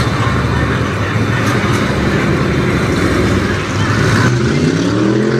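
Car engine running, with one rev near the end, its pitch rising and then falling back.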